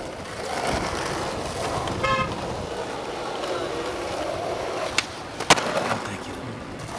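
Skateboard wheels rolling on rough asphalt, a steady rolling noise. A brief horn toot comes about two seconds in, and two sharp clacks follow around five seconds in.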